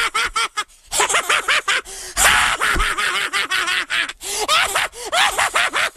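A crowd of cartoon children's voices gasping in a rapid string of short bursts.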